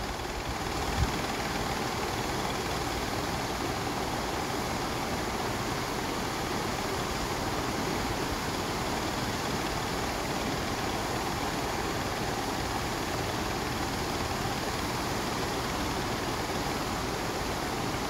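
Steady, even rushing noise with no clear pitch or rhythm, and a single low thump about a second in.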